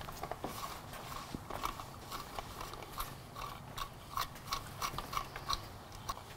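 Light metallic clicks and ticks, several a second and irregular, as bolts are run in by hand on a motorcycle engine cover.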